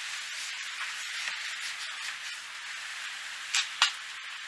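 Cloth wiping dirt out of a car door's window channel: a soft steady rubbing hiss, with two short sharp knocks near the end.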